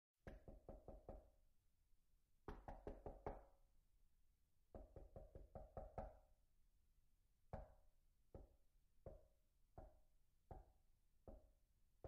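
Knocking on a door: three quick runs of about five or six knocks each, then six single knocks spaced a little under a second apart.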